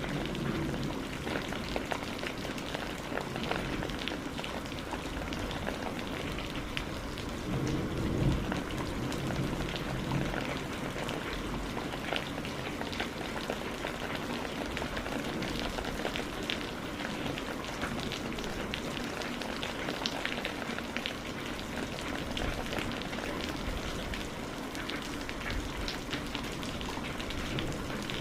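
Steady rain falling, with many individual drops ticking on a surface. A brief low thump comes about eight seconds in.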